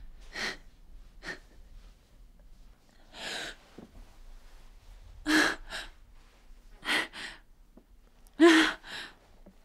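A woman crying: gasping, shaky breaths and a few short voiced sobs, spaced a second or two apart, the loudest one near the end.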